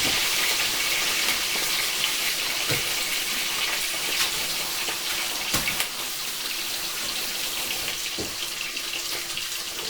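Stir-fry vegetables sizzling in a hot pan: a steady hiss with a few faint clicks.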